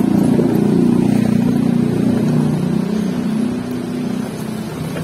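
A motor scooter's engine running as it passes close by. Its pitch drops a little about two seconds in, then the sound eases off.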